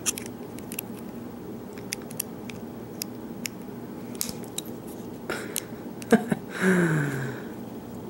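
Small metal clicks and scrapes of a thin flat steel tool prying at the circlip on a brass lock cylinder, the clip not coming free. About six and a half seconds in, a short hum of effort with falling pitch.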